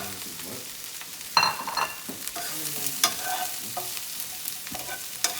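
Sliced mushrooms and green onions sizzling in hot oil in a sauté pan as they are stirred. A utensil knocks and scrapes against the pan a few times.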